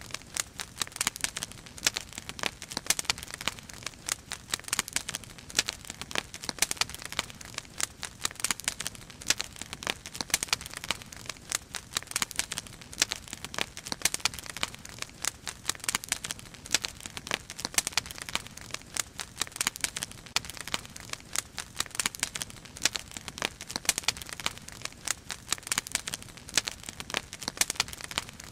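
Wood fire burning in a fire basket, crackling with a dense, irregular run of sharp pops and snaps.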